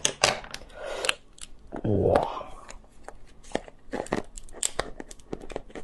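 Cooked king crab leg shell being cracked and pulled apart by hand: a run of irregular sharp cracks and crunching snaps, with a short vocal sound about two seconds in.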